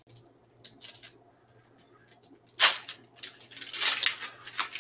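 Foil wrapper of a trading-card pack crinkling and being torn open, in several short noisy rustles. The loudest comes about two and a half seconds in, followed by a run of crinkling near the end. A faint steady hum lies underneath.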